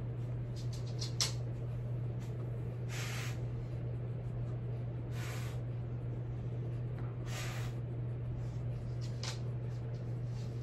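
A person tasting a stout beer, with four short hissy sips or breaths through the nose about two seconds apart and a small click about a second in, over a steady low hum.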